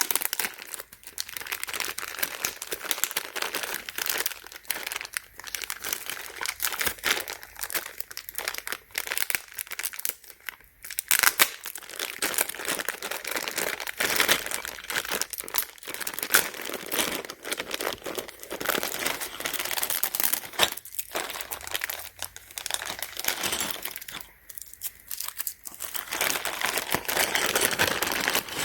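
Plastic packaging crinkling and rustling with some tearing, in irregular handling noise with short pauses, as dent-repair tools are unwrapped.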